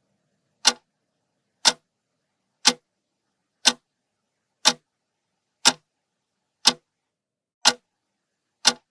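Clock-tick sound effect ticking nine times at an even one tick a second: a countdown timer for answering a riddle.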